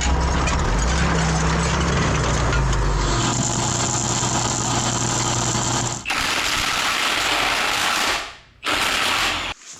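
Loud machinery noise in several abruptly cut stretches: a heavy low drone for the first three seconds, then a dense clatter, then a steady hiss from about six seconds in, briefly dropping out and cutting off near the end.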